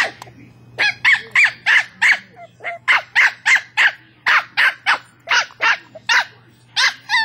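West Highland White Terrier barking at its toy ball: a rapid run of sharp, high-pitched yaps, about three a second, with a short pause near the start.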